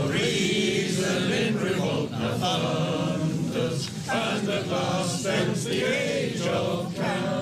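Choral singing: a group of voices chanting a slow, rising and falling melody.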